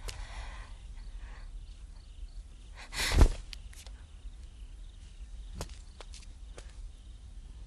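Soft footsteps and movement in a quiet room, with a short, loud rush of noise ending in a low thud about three seconds in, then a few faint isolated knocks.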